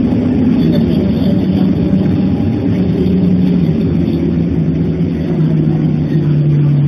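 Engine and drivetrain of a diesel city bus, heard from inside the cabin as it drives along. The engine runs steadily under way, its pitch easing down about two-thirds of the way through.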